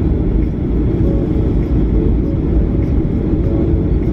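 Steady low rumble inside the cabin of a Boeing 737-800 taxiing, from its CFM56-7B engines at taxi power and the aircraft rolling along the taxiway.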